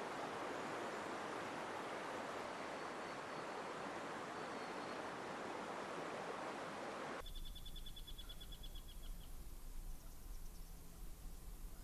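Steady rush of water. About seven seconds in it cuts to a quieter scene with a low rumble and a bird's rapid high trill lasting about two seconds.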